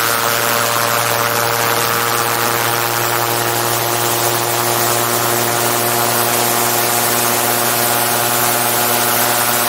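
Gyroplane's engine and pusher propeller running at a steady pitch in flight, with a constant rush of wind over the externally mounted camera.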